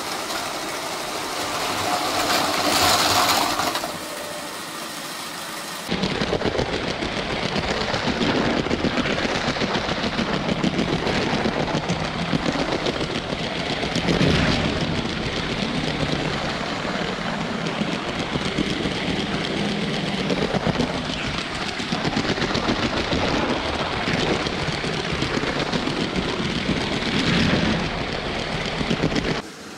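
LEGO train running along plastic track: motor and wheels making a continuous dense rattle. The sound changes abruptly about six seconds in and drops away just before the end.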